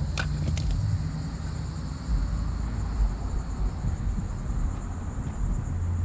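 Insects chirring steadily over a low rumble, with a couple of light clicks just after the start.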